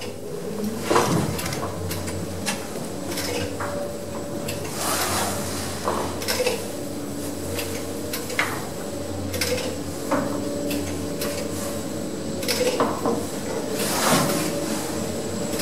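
Lift car running in its shaft, heard from on top of the car: a steady machine hum with frequent metallic clacks and rattles.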